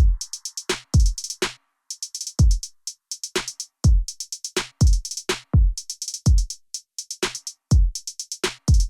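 Background music: an electronic drum-machine beat of deep kick drums that drop in pitch, with crisp hi-hat ticks between them.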